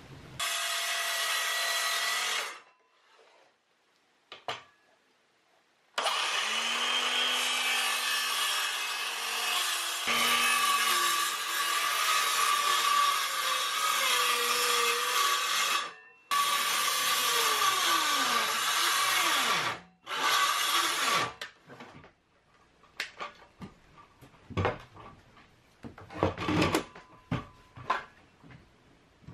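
DeWalt circular saw cutting into 3/4-inch plywood in several passes to rough out grooves, each run a loud motor whine with the blade cutting wood, stopping abruptly between passes. Near the end, a few scattered knocks and clatter.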